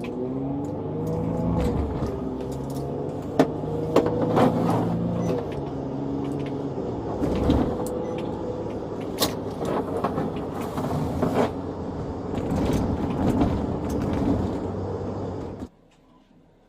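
Police car's engine running, heard from inside the car, its pitch rising and falling, with scattered knocks and clicks; the sound cuts off abruptly about a second before the end.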